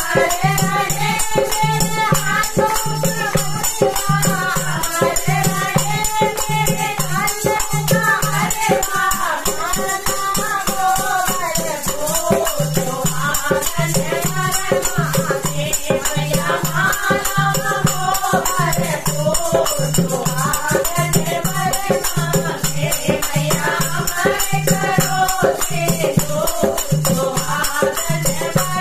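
A group of women singing a Hindi devotional bhajan together, accompanied by a dholak drum beat, small brass hand cymbals (manjira) jingling, and hand claps in time.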